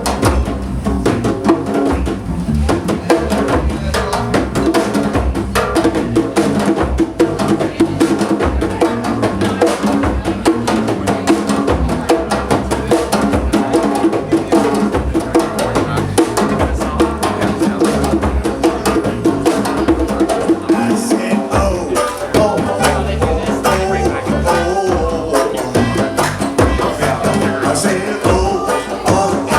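Live band playing with drums and percussion driving a steady beat, with some singing.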